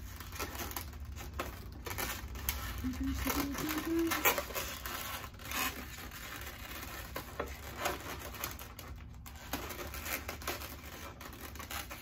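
Twisted latex modelling balloons being handled: rubbery rubbing, squeaks and crinkles under the fingers, with a short squeak rising in pitch about three seconds in.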